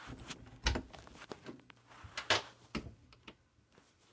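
Handling noise from a handheld phone being moved about: rustling with scattered knocks and thumps, the loudest a little under a second in and twice more past the two-second mark.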